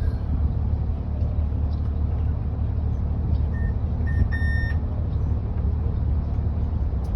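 Tour boat's engine running steadily, a low rumble. A few short electronic beeps sound about four seconds in.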